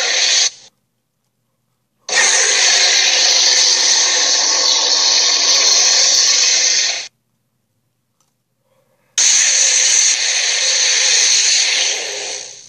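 Allosaurus roar sound effects: long, harsh, rasping dinosaur roars, played one after another with complete silence between them. One ends about half a second in, the next runs for about five seconds, and another starts near the nine-second mark and fades out at the end.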